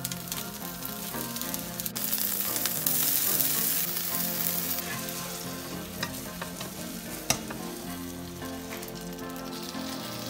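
Egg omelette frying in oil in a nonstick pan, sizzling steadily as it is folded in half, with a louder, brighter hiss of sizzle from about three to five seconds in and a few light clicks later on.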